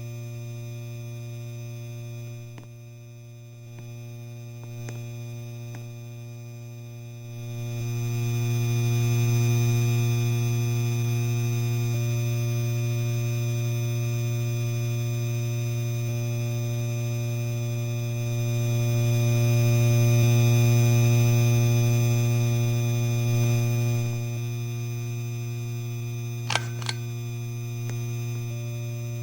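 Electric fan motor giving a steady electrical hum with overtones, growing louder about a quarter of the way in, with two sharp clicks near the end.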